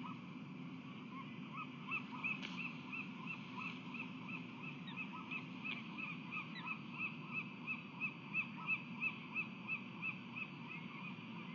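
Osprey calling: a long run of short, sharp chirps, about three or four a second. It starts about a second and a half in, grows louder, and stops shortly before the end.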